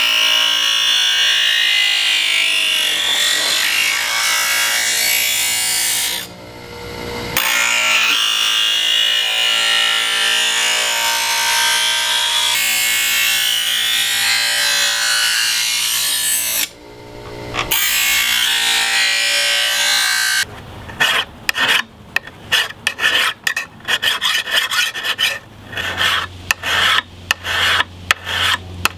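Bench grinder grinding the steel of a knife blank forged from a farrier's rasp, a steady whining grind that breaks off twice for about a second, while the blade's profile is ground out. About twenty seconds in it gives way to a hand file stroked rapidly back and forth along the blade, cutting the edge bevel.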